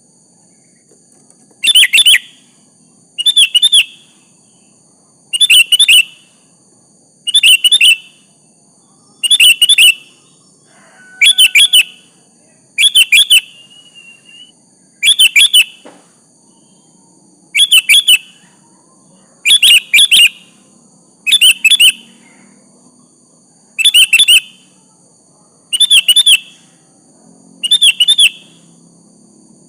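Sooty-headed bulbul (kutilang) singing short, loud chirping phrases, repeated at a steady pace of about one every two seconds.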